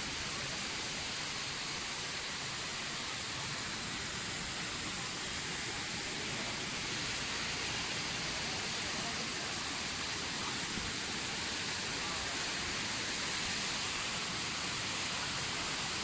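Steady rush of fast-flowing stream water, an even hiss with no breaks.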